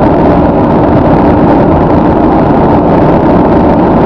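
Steady road and wind noise inside a car's cabin while cruising at highway speed, a loud, even rumble with no distinct events.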